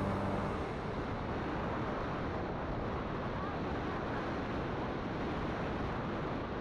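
Steady wind rushing over the microphone of a moving Kymco Super Z 150 fi scooter, with road and engine noise underneath.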